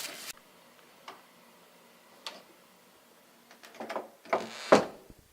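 A few separate sharp clicks, then a short cluster of knocks and rustling near the end, the loudest a single sharp knock.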